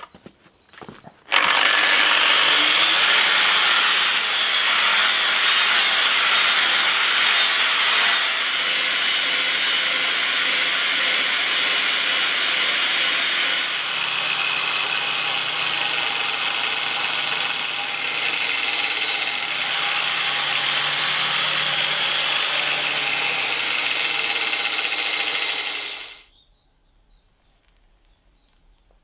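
Makita angle grinder with a flap disc grinding steel, steady and loud. From about halfway a belt grinder is heard sanding steel. The grinding cuts off abruptly a few seconds before the end.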